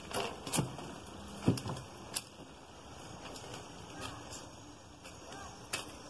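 Footsteps on a path of stepping stones and dry leaf litter: a few separate steps and crunches over a steady background hiss.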